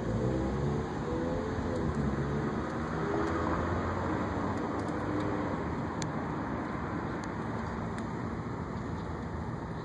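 Street traffic noise with a vehicle engine running past during the first few seconds, then a steady hum of traffic.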